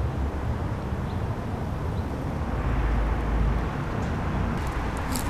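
Steady outdoor background noise: a low rumble with a hiss over it, and a few faint high chirps near the end.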